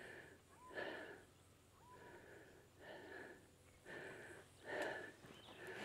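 Faint breathing of someone walking, close to the microphone, with a breath about once a second.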